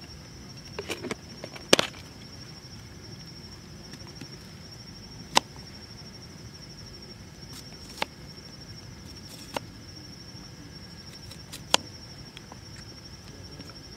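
A steady, high-pitched insect trill runs throughout, with half a dozen sharp clicks and taps at irregular moments from camp gear being handled; the loudest come about two, five and twelve seconds in.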